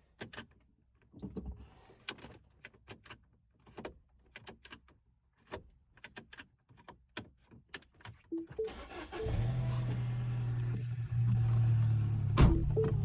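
A run of sharp plastic clicks and knocks, like a car key being handled and pushed into the ignition. About nine seconds in, a steady low hum starts, with short beeping tones over it.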